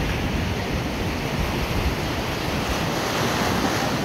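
Sea surf breaking and washing in the shallows, with wind buffeting the microphone.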